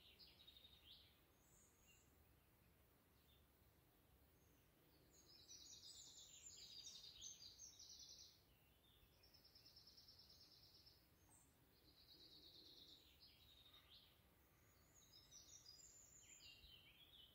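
Faint birdsong in a garden, with short chirps and whistled phrases coming and going, loudest about five to eight seconds in. Under the birdsong is a quiet, even outdoor background hiss.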